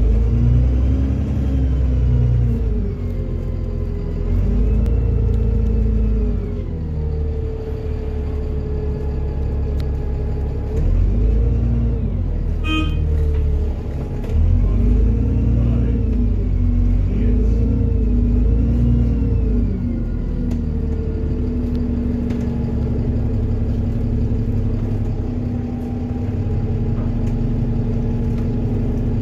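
Diesel engine of an Alexander Dennis Enviro400 double-decker bus, heard from inside the bus: a heavy rumble whose note climbs and drops again and again as the bus accelerates through its gears, then settles to a steady drone for the last third. A brief high ringing tone sounds about 13 seconds in.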